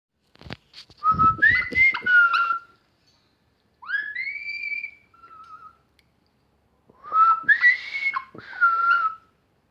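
Whistling: a short three-note whistled phrase, then a pair of rising whistled glides, then the same three-note phrase again near the end.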